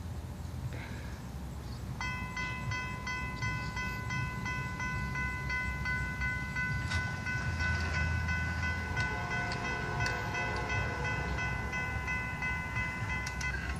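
Railroad grade-crossing warning bell starting abruptly about two seconds in and ringing in a fast, even rhythm as the crossing activates for an approaching train. Fainter lower tones join about two-thirds of the way through: the train's horn sounding in the distance.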